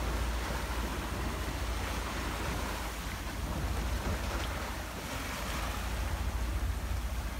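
Steady wind rumble on the microphone over the rushing hiss of water streaming past the hull of a sailing yacht under way.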